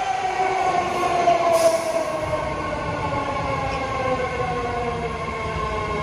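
BART Fleet of the Future train slowing into the station: the electric propulsion whine falls steadily in pitch as it brakes, over wheel-on-rail rumble that grows after about two seconds. A brief hiss comes about one and a half seconds in.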